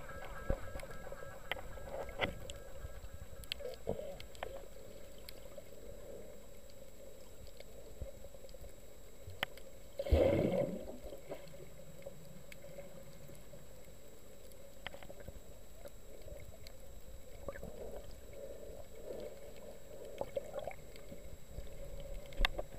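Underwater ambience heard through a camera's waterproof housing: a steady muffled hum with scattered small clicks and crackles. About ten seconds in there is a louder rush of water and bubbles that sweeps down in pitch.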